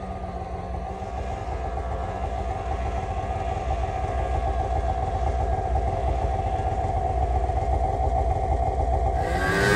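Snowmobile engine running hard with a steady high note as the sled climbs a steep slope through deep powder, slowly getting louder. Near the end a louder, closer sound with a changing pitch comes in.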